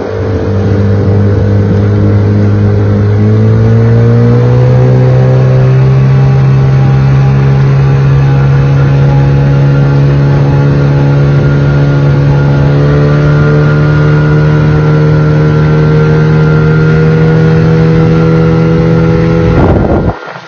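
Hangkai 12 hp outboard motor running under way. Its pitch rises as the throttle is opened about four seconds in, then holds steady at speed.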